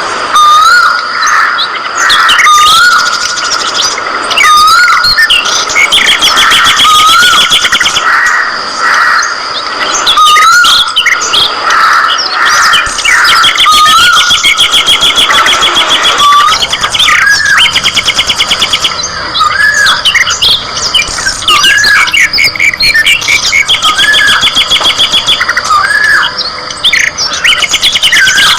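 A flock of budgerigars chirping and chattering together. Short whistled calls that rise and dip repeat every second or two over a steady layer of buzzy trills.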